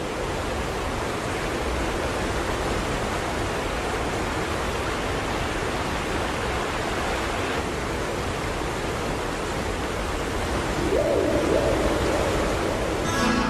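A steady rushing noise, with a short hooting tone about eleven seconds in.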